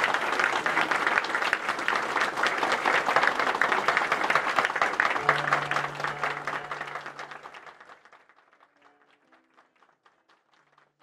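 Crowd applauding, the clapping dying away about eight seconds in.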